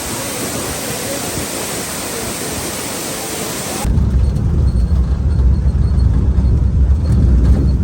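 Waterfall rushing, a steady hiss of falling water. About four seconds in it cuts abruptly to a loud low rumble.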